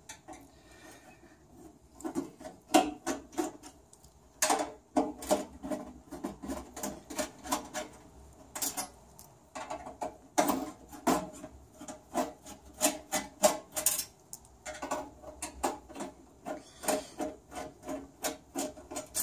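Phillips screwdriver turning out the screws of a Rancilio Silvia espresso machine's stainless steel top cover: a run of short scraping clicks in several bursts with brief pauses, starting about two seconds in.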